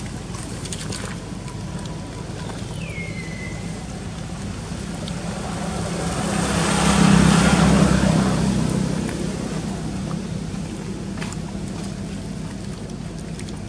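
A motorbike passing on the road, its engine and tyre noise swelling to a peak about seven seconds in and then fading away, over a steady low hum of traffic.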